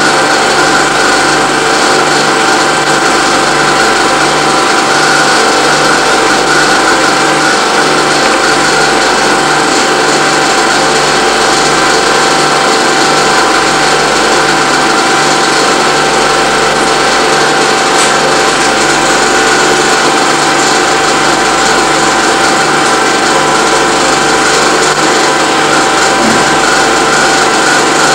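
Film projector running with a steady mechanical whir and a low, regular pulse beneath it.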